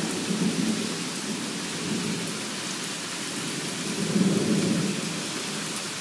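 Heavy rain pouring with rolling thunder, which rumbles low and swells again about four seconds in.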